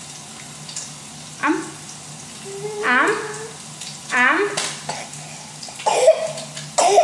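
A toddler fussing in short, whiny vocal sounds with sliding pitch, about five times. Beneath them runs a faint steady sizzle of food frying in a pan.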